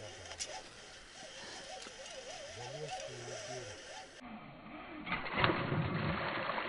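A hooked pike splashing and thrashing at the water's surface close to the rod tip as it is reeled in. The splashing comes in the last couple of seconds, after a quieter stretch with only faint wavering calls.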